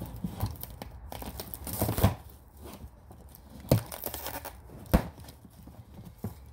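Cardboard box and its packing being torn open and handled by hand: tearing and rustling, broken by a few sharp knocks.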